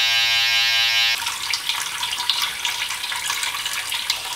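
Wahl T-blade corded hair trimmer buzzing steadily while edging the hairline, cutting off abruptly about a second in. A steady hiss of running water follows.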